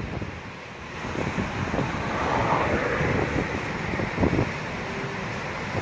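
Wind buffeting the microphone over the wash of breaking surf, with a stronger gust about four seconds in.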